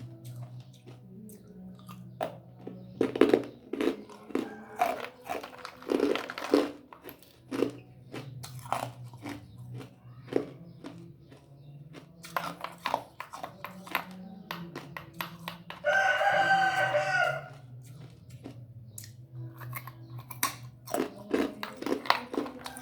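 Ice being crunched and chewed between the teeth, in repeated crisp crunches with short pauses. About 16 s in a rooster crows once, a single call of about a second and a half, the loudest sound.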